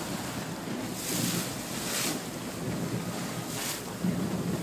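Yacht under way: the engine's low steady hum under wind buffeting the microphone, with water rushing along the hull in loud hissing washes about a second in, at about two seconds and again near the end.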